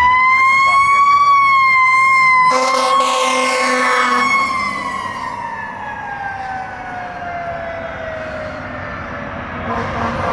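Fire truck siren wailing: it holds a high note, then slowly winds down in pitch over several seconds. A horn blast cuts in about two and a half seconds in and lasts nearly two seconds.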